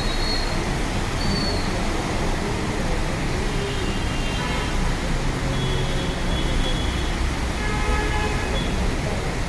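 City street traffic in the rain: a steady hiss of vehicles moving on wet roads, with a few brief high-pitched tones cutting through.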